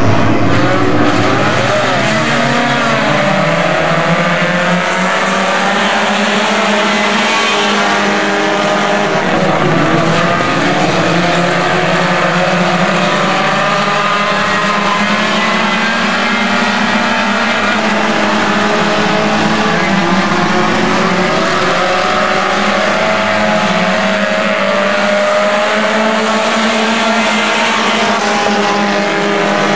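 A pack of front-wheel-drive Stinger-class race cars racing together, many engines at high revs overlapping, their pitches rising and falling as the drivers lift and get back on the throttle.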